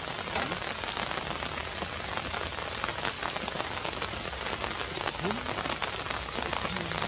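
Steady, dense crackling patter of many small ticks over a hiss.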